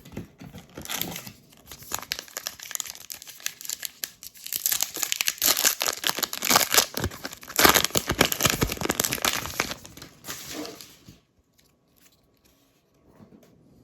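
Trading card pack wrapper being torn open and crinkled: a dense run of crackling that stops about 11 seconds in.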